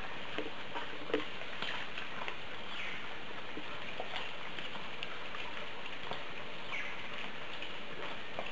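A herd of white-lipped peccaries at a clay lick: many scattered clicks and knocks over a steady hiss, with two short falling calls, one about three seconds in and one later on.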